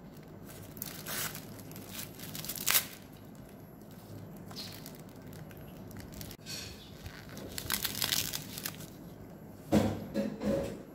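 Plastic film wrapper of a triangular onigiri rice ball being torn open and pulled off by hand, crinkling in bursts, loudest near the end.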